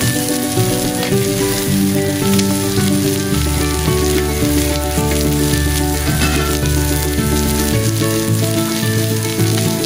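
Pork steak sizzling in a ridged grill pan, a steady hiss of frying fat, with background music playing over it in held notes that change every second or so.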